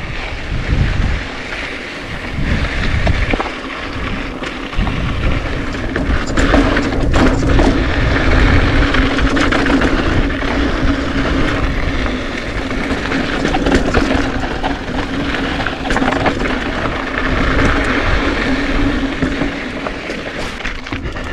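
Mountain bike ridden down a rocky trail, heard from a camera on the bike or rider: wind buffets the microphone while the tyres and frame rattle and clatter over rock.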